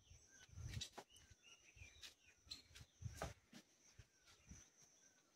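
Near silence with faint, scattered bird chirps over a thin steady high tone, and a few soft knocks.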